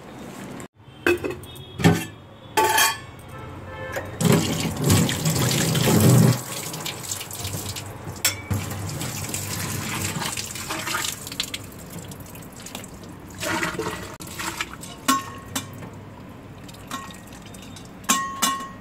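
Tap water running and splashing into a stainless-steel kitchen sink while dishes are washed, with sharp clinks and knocks of steel utensils, several in the first three seconds and again near the end, some ringing briefly.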